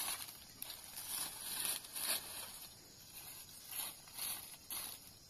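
Dry fallen leaves rustling and crackling in irregular bursts as they are scooped up and gathered by hand.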